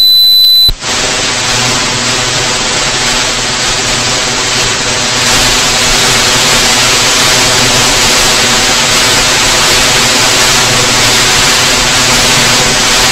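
Loud, even hiss of radio static from a software-defined radio receiver demodulating AM, tuned to a shortwave frequency (15.437 MHz) with no clear station on it. A steady high whistle cuts off under a second in, just as the static starts.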